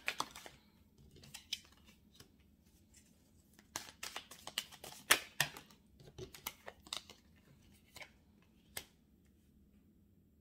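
Oracle cards being handled and dealt from the deck onto the table, heard as irregular light snaps and taps of card against card and card on the board. The snaps die away after about nine seconds.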